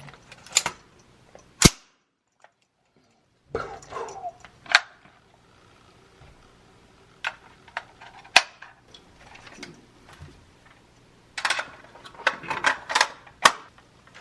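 Gunshots at a shooting range: single sharp shots at uneven intervals, then a quicker run of shots and clatter near the end.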